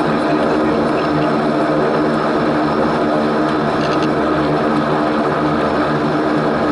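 Antonov An-24's twin Ivchenko AI-24 turboprop engines running at a steady setting: a constant, loud propeller drone with a stack of steady tones over a rushing noise.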